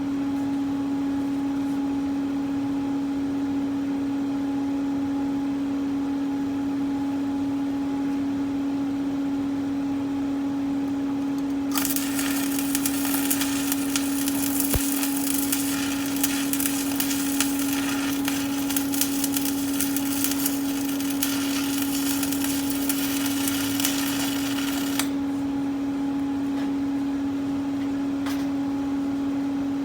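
Electric welding arc crackling for about thirteen seconds on steel angle brackets, starting about twelve seconds in and stopping abruptly, over a steady low hum that runs the whole time.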